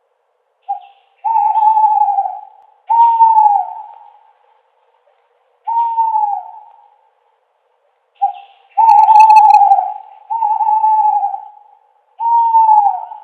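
An owl hooting: a short note, then three hoots about a second long, each sliding down in pitch at its end. The same phrase comes again about eight seconds later.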